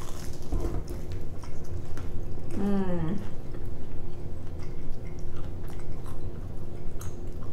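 Close-up chewing and biting of a crunchy, batter-fried Korean cheddar corn dog, with small crunch clicks. A short voiced hum of a person's voice rises and falls about two and a half seconds in.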